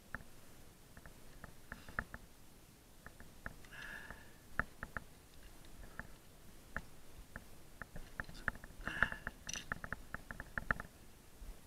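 Scattered light clicks and clatter of metal carabiners and a rappel device handled with gloved hands, with brief rustling of rope and gloves. The clicking is densest about four seconds in and again near the end.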